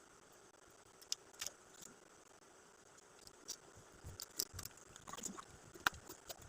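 Scattered light clicks, taps and soft rustles of hands handling gift boxes and their contents while unpacking. The sounds are sparse at first and grow busier about four seconds in.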